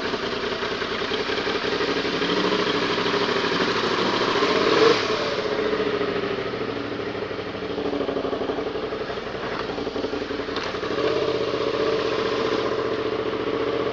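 Suzuki SV650's 645 cc V-twin engine running while riding, its note shifting a little with the throttle about five seconds in and again near eleven seconds, over a steady rush of wind and road noise.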